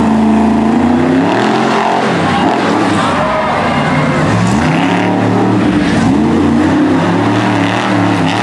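Monster truck engine revving hard: its pitch is held high, drops about two seconds in, then climbs and falls several times as the throttle is worked.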